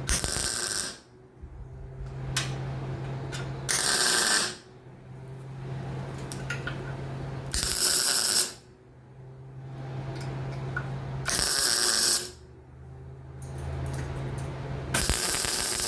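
Electric arc welder laying short stitch welds on exhaust pipe: five crackling bursts of about a second each, roughly every four seconds, with a steady low hum in the pauses between them.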